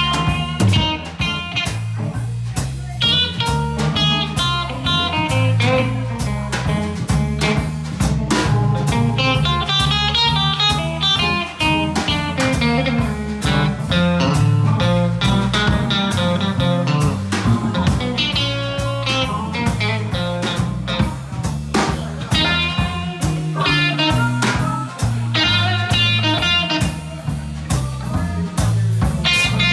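Live blues band playing: an electric guitar plays lead lines over an electric bass and a drum kit keeping a steady beat.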